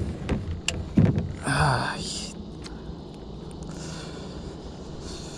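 A few sharp knocks in the first second, then a short muttered voice, followed by a steady low background noise.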